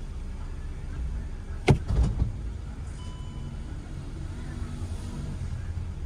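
A steady low rumble inside the car, with one sharp knock a little under two seconds in, followed by a few softer knocks. A faint short beep-like tone sounds about three seconds in.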